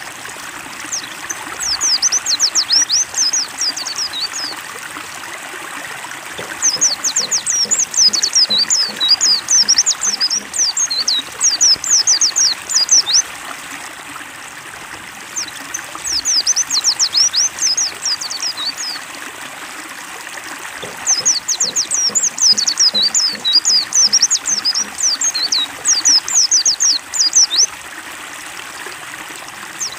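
White-eye (pleci) song in repeated bursts of rapid, high chirps, each burst several seconds long with short pauses between, over a steady trickle of running water.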